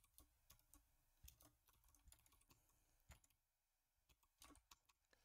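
Very faint computer keyboard typing: irregular key clicks with short pauses between them.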